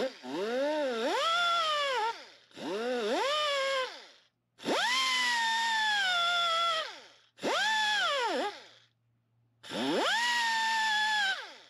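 Die grinder with a fine sanding disc run in five short bursts on the pad of a Honda VTEC rocker arm. Each time its whine rises as it spins up, then sags in pitch as the disc is pressed on. It is polishing out wear where the cam lobe has dug into the pad.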